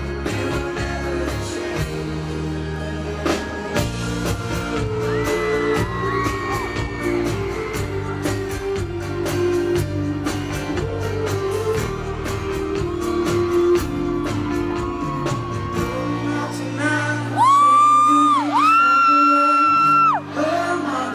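Live pop band playing over the PA with singing, heard in a large space. About three-quarters of the way through, loud high sustained whoops and shouts rise above the music for a few seconds.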